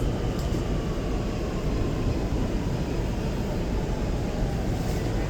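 Interior noise of an R211T subway car: a steady low rumble with a faint electric whine from the propulsion that slowly falls in pitch as the train slows.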